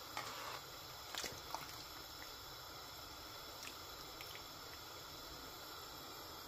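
A pot of jaggery syrup and desi ghee at a rolling boil, a faint steady bubbling hiss, with a few soft clicks in the first second or so.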